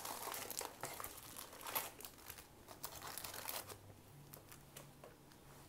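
Foil trading-card booster packs crinkling as they are pulled out of the box and handled, with a dense run of crackles in the first two seconds that thins out after.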